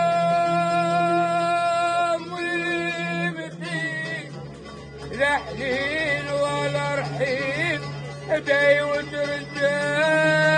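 Moroccan Ghiwani-style folk song performed live. A singer holds one long note, then sings a wavering, ornamented phrase, and near the end settles into another long note, over a steady low accompaniment.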